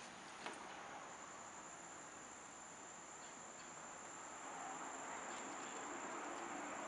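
Faint handling noise, with a single click about half a second in and a soft rustle growing louder near the end, over a steady high-pitched whine.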